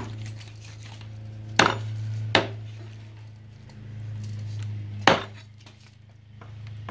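Four sharp knocks, unevenly spaced, over a steady low hum.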